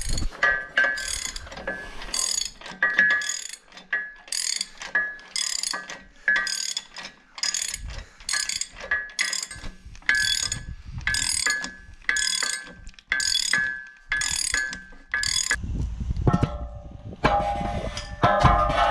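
Socket ratchet wrench clicking in short runs about twice a second as it turns the bolts on a bale-wrapper roller's end bearing, the work of replacing a seized roller. The ratcheting stops near the end.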